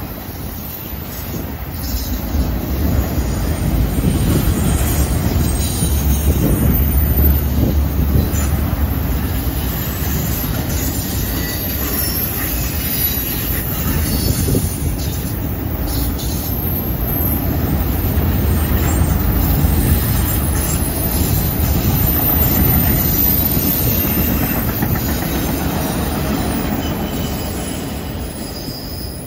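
Freight train of autorack cars rolling past on a curve: a steady rumble of steel wheels on the rails, with faint high wheel squeal now and then. It grows a little quieter over the last few seconds as the cars move away.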